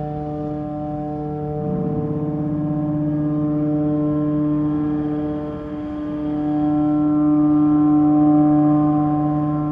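Ship's horn sounding a long, low, steady blast, dipping briefly a little past halfway before sounding on.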